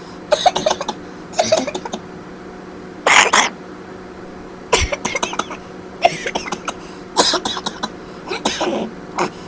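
A man coughing over and over in about seven short bouts, roughly one every second and a bit.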